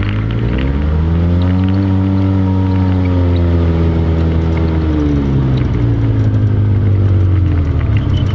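ATV engine revving up over about a second, holding a steady higher pitch for a few seconds, then easing back down about five seconds in.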